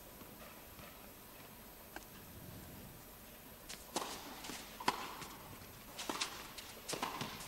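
Tennis point in an indoor arena: after a hushed pause, sharp racket strikes and ball bounces start about four seconds in, roughly one every half second, with shoes squeaking on the court between them.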